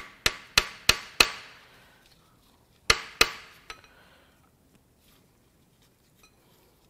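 Hammer striking a brass drift against the seized rod and piston of a rusted, locked-up Chevrolet 454 big block: five quick metallic blows, about three a second, then a pause and two more blows about three seconds in, each ringing briefly. The hammering is an attempt to drive the rusted-in piston out of its cylinder.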